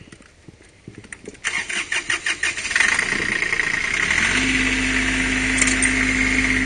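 A New Holland 18 hp compact tractor engine is cranked by its starter for about a second and a half, catches, and settles into a steady run. A few light clicks of the controls come before the cranking.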